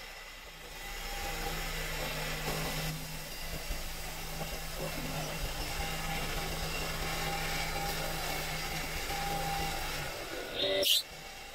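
A workshop machine's motor running steadily with a low hum. A short, loud rising whoosh comes near the end.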